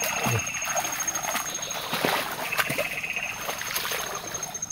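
Feet wading through shallow flooded swamp water, sloshing and splashing with each step.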